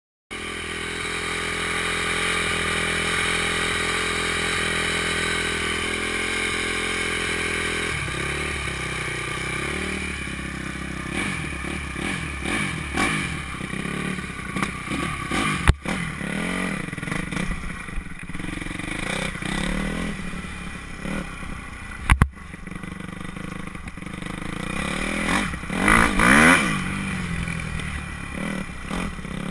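Dirt bike engine idling steadily, then blipped unevenly from about eight seconds in, with two sharp knocks along the way. Near the end it revs up in a rising glide as the bike pulls away.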